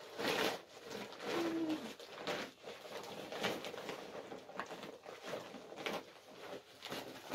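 Cloth and a plastic sack rustling, with small knocks, as a sack is fastened onto a child's back and a toddler is lifted up onto it. A short, steady low call sounds about a second and a half in.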